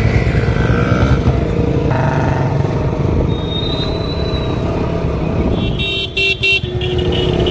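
KTM Duke 125's single-cylinder engine running as the bike is ridden through light town traffic, heard from the rider's seat. About six seconds in come a few short horn honks.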